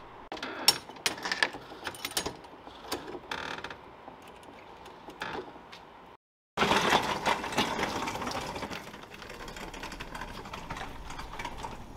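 Wheeled metal cage cart loaded with cardboard boxes rattling and clattering as it is pushed along, a quick run of clicks and knocks. It stops dead for a moment just after six seconds in, then comes back louder and denser.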